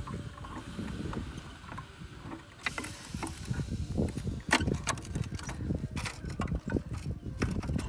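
Kick-start lever of a small single-cylinder underbone motorbike worked by hand, its mechanism clicking and knocking at irregular moments while the engine does not run.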